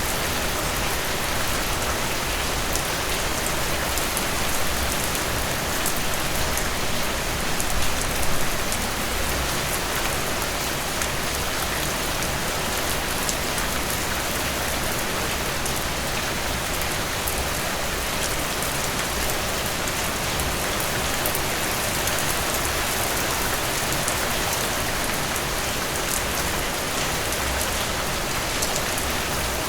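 Steady rain falling, a constant hiss with dense pattering of individual drops, briefly a little louder about eight seconds in.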